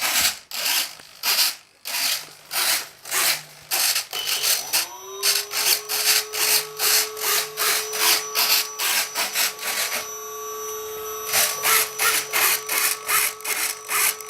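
Servos on the E384 drone's ailerons buzzing as they are driven back and forth from the remote, about two strokes a second. About four and a half seconds in, a steady electric whine rises briefly and then holds a constant pitch under the servo strokes.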